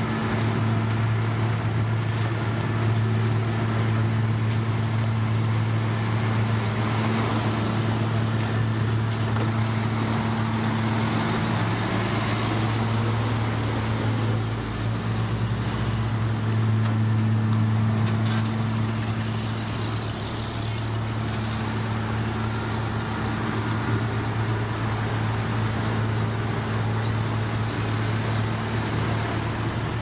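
Heavy diesel engines of a dump truck and a paving machine running with a steady deep hum, with a short rising engine note about twelve seconds in.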